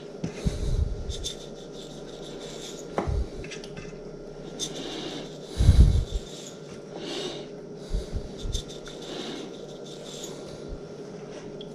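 Hands handling small fish while salting them one at a time: rubbing and rustling, with a few soft knocks against a dish, the loudest about halfway through. A steady low hum runs underneath.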